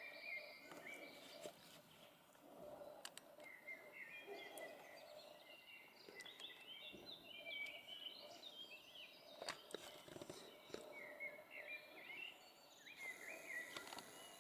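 Faint twittering of small birds: runs of quick, short chirps, with a few sharp clicks among them.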